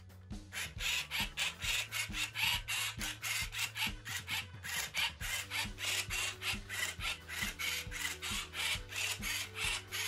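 Moyu Cube Robot's motorised grippers turning the faces of a 3x3 speed cube in quick succession: a rapid run of short, whirring, rasping turns, roughly three a second, starting about half a second in.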